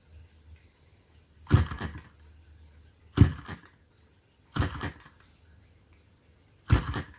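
Hand flicking the flywheels of an Enjomor hit-and-miss model engine to turn it over for starting, before it fires: four sharp slaps about a second and a half apart, each trailing off briefly.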